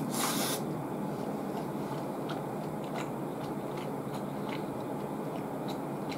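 Close-up chewing and mouth sounds of a person eating sushi. A short noisy smack comes at the very start, then small scattered clicks over a steady low hum.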